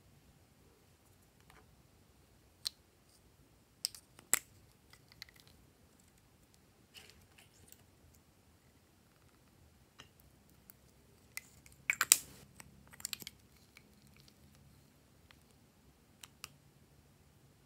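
Small scissors snipping pieces off lipsticks, heard as scattered sharp clicks and snips with quiet gaps between, the loudest cluster of clicks about twelve seconds in.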